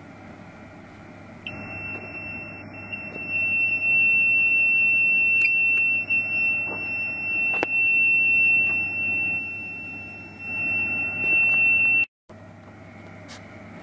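A bench DC electronic load's alarm beeper sounds one continuous high-pitched tone for about ten seconds, starting about a second and a half in and cutting off abruptly near the end. It signals that the power supply's output has dropped to zero volts. A low steady hum runs underneath.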